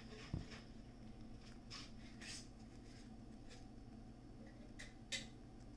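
Dwarf hamster nibbling broccoli: faint, scattered clicks of chewing, about half a dozen over a few seconds, with a soft thump just after the start, over a steady low hum.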